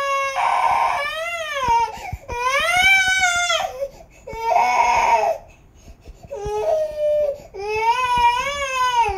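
A toddler crying in long, high-pitched wails, about five of them with short catches of breath between, the pitch rising and falling within each cry.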